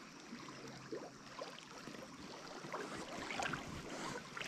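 Faint trickling and gurgling of a small trout stream's current running over rocks, with many small irregular ticks and splashes.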